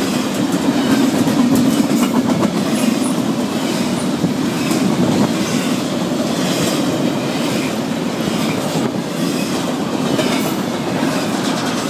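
Norfolk Southern double-stack intermodal freight train passing at speed: a steady loud rumble and rattle of the container well cars, with wheels clicking repeatedly over the rail joints.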